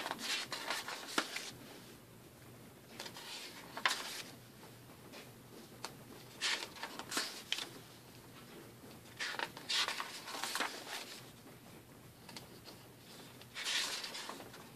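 Pages of a stapled book of home-printed paper sheets being turned by hand: five rustling paper swishes, about one every three seconds, some with a sharp crisp snap of the sheet.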